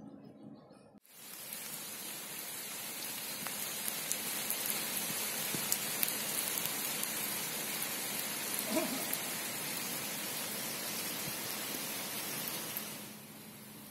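Steady rain falling on paved ground and puddles: a dense hiss flecked with the ticks of single drops. It starts abruptly about a second in and stops shortly before the end.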